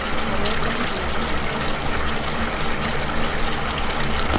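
Duck caldereta in a wok bubbling at a simmer: a steady bubbling hiss with many small pops.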